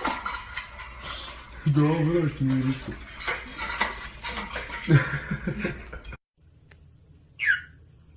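Stainless steel dog bowl clinking and scraping on a tile floor as a puppy shoves it along with its head inside, a rapid run of clatters that stops abruptly about six seconds in.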